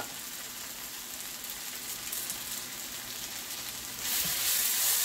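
Sliced onions sizzling steadily in oil in a pot. About four seconds in the sizzle gets louder as they are stirred with a wooden spatula.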